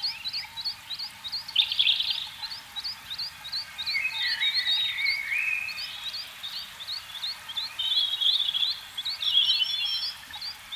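A chorus of calling frogs: short high chirps repeat steadily about twice a second, and louder chirping, trilling calls overlap them several times.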